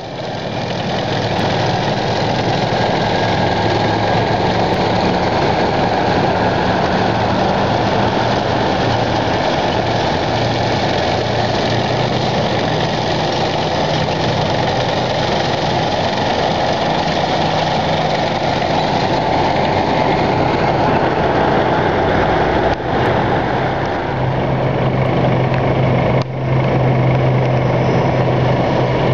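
Tracked armoured vehicles (tanks and an armoured recovery vehicle) driving past in a column: a steady, loud drone of heavy diesel engines mixed with the rumble of tracks on asphalt. A stronger low engine hum comes in about 24 seconds in as a vehicle comes closer.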